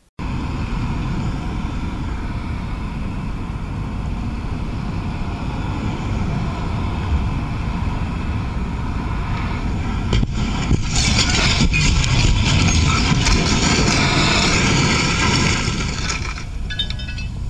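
Motorcycle riding with steady wind rushing over the helmet camera's microphone. About ten seconds in come several sharp knocks of a vehicle crash ahead, followed by a louder rushing noise for about five seconds.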